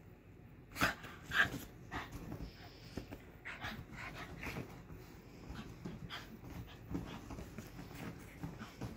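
Two small dogs, a gray poodle and a tan-and-white dog, play-fighting, making short scattered dog sounds, the loudest about a second in and again half a second later.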